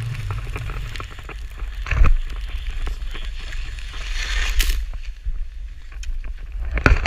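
Wind buffeting the microphone of a pole-mounted action camera, over the hiss and scrape of skis sliding on snow. A sharp knock about two seconds in, a louder hiss of the skis around four seconds in, and a few knocks near the end.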